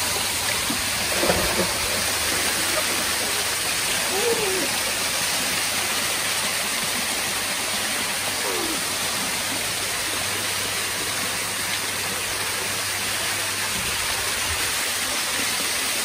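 Artificial waterfall pouring into a pool: a steady rush of falling water splashing onto the water surface.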